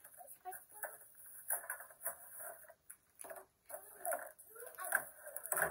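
A Play-Doh toy set being unpacked from its cardboard box: irregular rustling of cardboard and packaging, with light knocks of plastic pieces.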